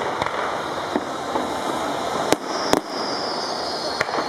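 Fireworks display: four sharp bangs of aerial shells, two of them close together in the middle, over a continuous dense crackle and rumble of further bursts.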